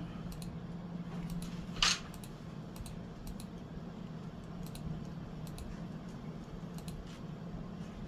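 Hunter 36-inch Comfort Breeze ceiling fan running on high speed: a steady low motor hum with a light rush of air from the blades. Faint scattered ticks, and one short sharp sound about two seconds in.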